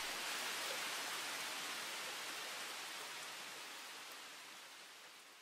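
A steady, even hiss like rain, fading slowly away to near silence.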